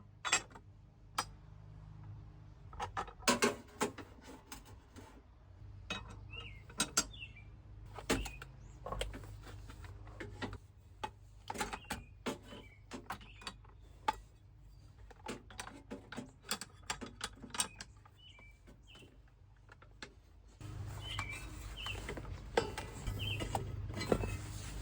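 Irregular metallic clicks, knocks and clinks of hand tools working on the seat base and its bolts. A steady low hum comes in near the end.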